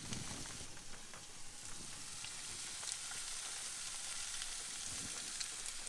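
Diced tuna frying in hot olive oil in a nonstick pan: a steady sizzle with a few faint ticks.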